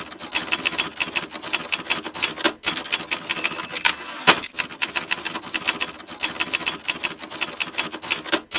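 A rapid, steady train of sharp clicks, about six or seven a second, pausing briefly a few times, with one heavier knock around the middle.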